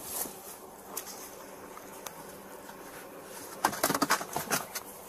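Police body-camera audio: handling and movement noise over a faint steady hiss, with a quick run of sharp clicks and knocks about three and a half seconds in.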